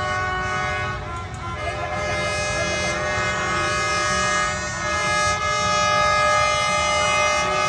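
Several horns sounding at once over a steady low rumble: a passing D19E diesel locomotive's horn mixed with many other horns honking around it, the tones shifting about a second in and again near the middle.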